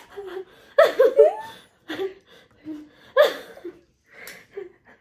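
Two women laughing in short bursts. The loudest burst comes about a second in and another about three seconds in.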